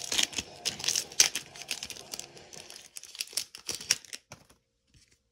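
Foil wrapper of a trading-card booster pack crinkling and tearing as it is handled and opened. The rustling is irregular, with sharp crackles, and stops after about four and a half seconds.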